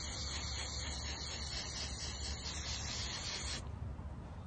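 Aerosol can of clear coat spraying in a steady hiss, cutting off about three and a half seconds in.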